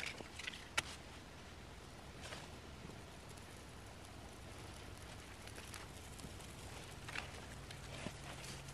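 Birch-bark tinder being lit by hand in the snow. There are light clicks and rustling, with a sharp click about a second in, then faint scattered crackles near the end as the bark catches and burns, over a low steady background hum.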